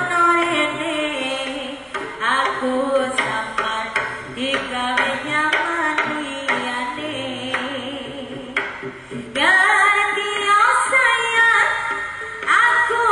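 Javanese jaranan music: a singer's wavering melody over kendang hand-drum strokes and other percussion.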